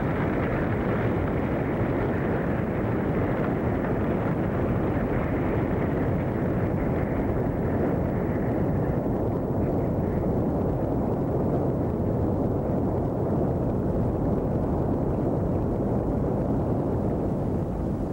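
A steady, dense rumbling roar of a sound effect. Its upper part thins out about halfway through and it eases off slightly at the end.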